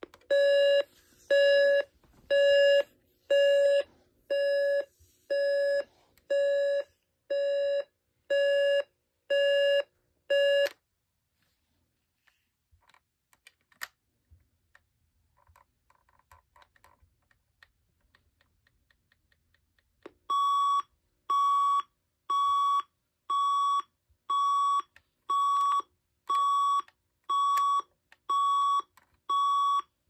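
Magnavox AJ3440 clock radio's alarm beeping, a low-pitched beep about once a second, which stops after about eleven seconds. A few faint button clicks follow, and about twenty seconds in the alarm starts again with a higher-pitched beep at the same pace.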